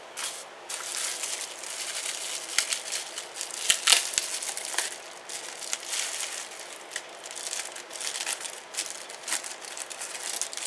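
Plastic bubble-wrap pouch crinkling and crackling as it is handled and pulled open to slide out a small handheld device, with many sharp crackles.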